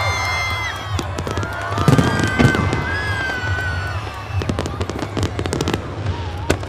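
Fireworks going off in a rapid run of bangs and crackles, with music playing underneath.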